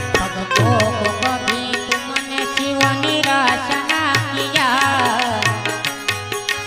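Instrumental interlude of a Gujarati devotional bhajan: a lead melody sliding and wavering between notes over hand-drum strokes keeping a steady beat.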